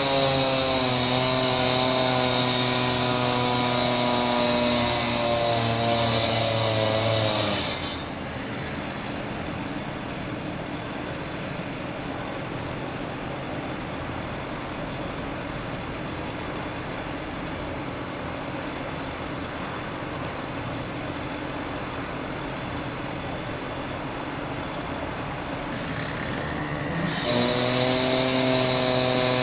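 Concrete saw cutting stone, its motor humming with a high whine on top. It cuts off abruptly about 8 seconds in, leaving a steady background rumble of traffic. Near the end it starts again, its pitch rising as it spins up.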